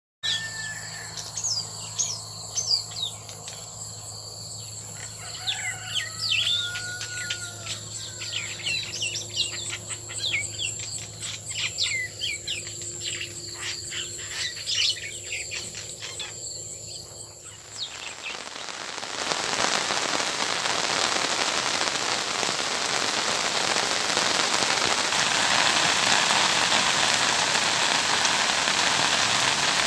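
Small birds chirping and whistling in irregular calls for about the first eighteen seconds. Then, suddenly, heavy rain falling steadily on flooded ground and puddles, a dense hiss.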